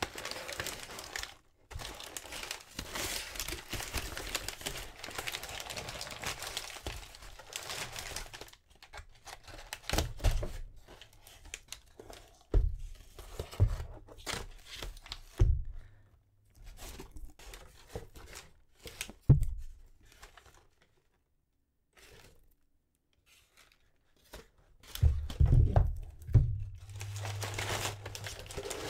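Crumpled brown kraft paper packing rustling and crinkling as it is pulled out of a cardboard box and pushed back in, with several dull knocks as the box and a slipcased hardcover book are handled. There is a short pause of near silence about two-thirds of the way through.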